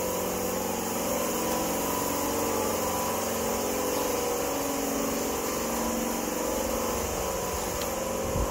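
A machine running steadily, an even engine-like hum with several steady tones.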